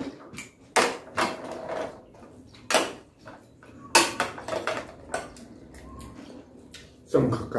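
Spoon and dishes clicking and knocking at the table while eating, several sharp clicks a second or more apart, with a louder knock near the end.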